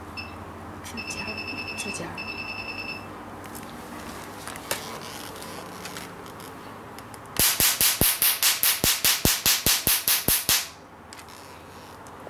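Q-switched Nd:YAG laser handpiece firing a rapid train of sharp snaps, about five a second, for some three seconds. Before that, the machine gives short runs of electronic beeps.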